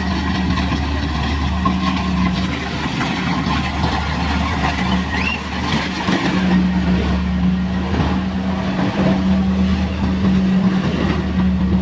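Kubota rice combine harvester running steadily, its engine a constant low drone under a wash of mechanical noise.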